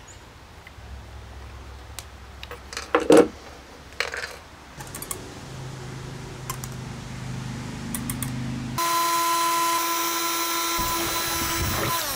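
A sharp click about three seconds in. Near the end, a cordless drill runs at a steady high speed for about three seconds, drilling a screw hole in the camper's outer wall.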